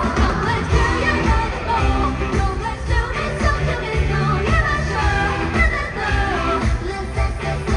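Live K-pop music played over a stadium sound system: a woman singing into a microphone over a steady, heavy beat.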